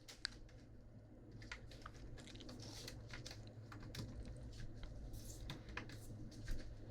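Chewing and crunching a snack close to a sensitive microphone: scattered small crunches and mouth clicks.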